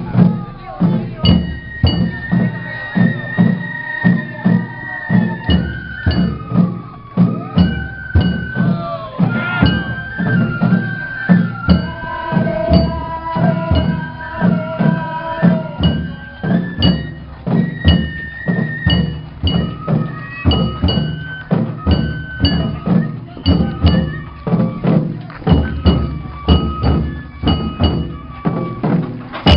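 Japanese festival float music (hayashi): drums struck in a steady, even rhythm, with a flute playing a held, stepping melody over it and small metal cymbals clicking sharply on the beats.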